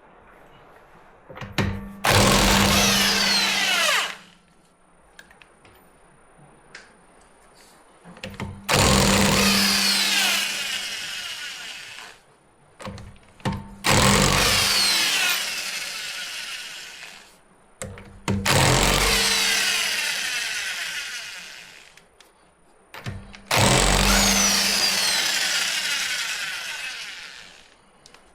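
Impact wrench on a 19 mm socket and extension, run five times in a row to take off the wheel's lug nuts. Each run lasts a few seconds and starts loud then fades as the nut spins off, with a short clack of the socket going onto the nut before each.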